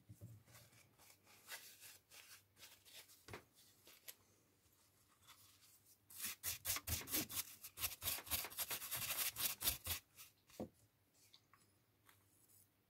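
Small brisk rubbing and scraping strokes on a small circuit board, as flux is scrubbed off the key fob board. Scattered scrapes and light knocks come first, then a loud run of quick, even strokes, about five a second, from about halfway through.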